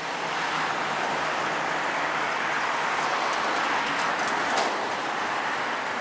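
Train running through a station: a steady rushing noise, with a few brief high squeals between about three and four and a half seconds in.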